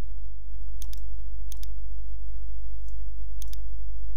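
Computer mouse-button clicks, about four in all, most of them a quick double tick of press and release, over a steady low hum.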